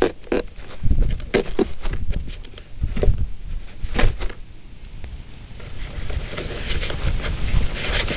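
Wind buffeting the microphone, with scattered sharp clicks and knocks from handling LiPo battery packs being moved back inside an RC foam jet. The clicks come thickest in the first half and fall away for a couple of seconds in the middle.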